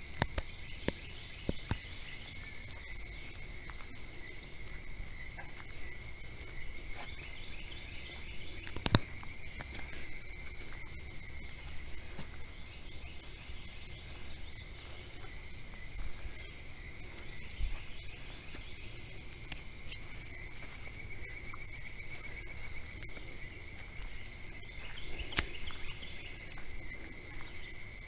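Steady chorus of insects, a continuous high trill at two pitches, over a low rumble, with scattered faint clicks and one sharp knock about nine seconds in.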